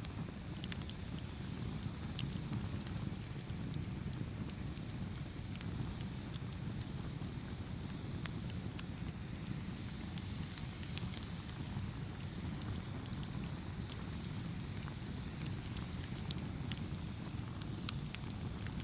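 Campfire burning, with a steady low rumble of the flames and frequent sharp pops and crackles scattered throughout.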